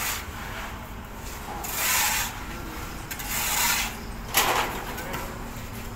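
Three rasping scrapes, each about half a second long and about a second apart; the last one starts more sharply.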